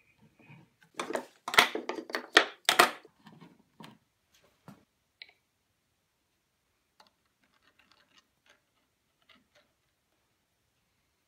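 Metal bar clamps being set on a glued-up plywood block: a quick run of sharp clacks and knocks as the clamp bars and jaws are handled and tightened. Later come a few faint, light ticks.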